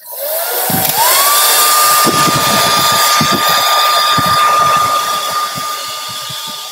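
Handheld electric hot-air blower switched on and blowing across wet acrylic pour paint: its motor whine rises over about a second to a steady high pitch above a loud rush of air, easing somewhat quieter near the end.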